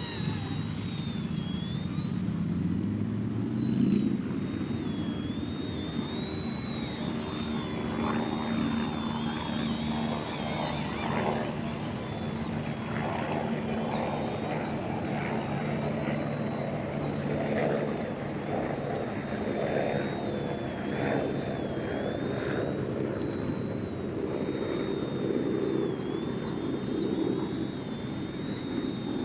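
ERA C159 mini RC helicopter in flight: a high electric-motor whine that wavers up and down as the throttle changes, over the steady buzz of the rotor blades.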